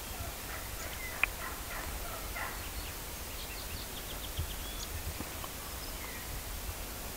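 Wild turkey gobbling: a rattling call lasting about two seconds, then a quick run of short, high notes about three and a half seconds in.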